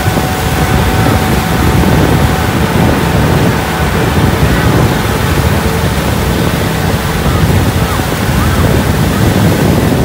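A tractor driving through a flooded, muddy rice paddy: its engine runs steadily under load while the wheels churn and splash through the water. Heavy wind noise on the microphone runs through it.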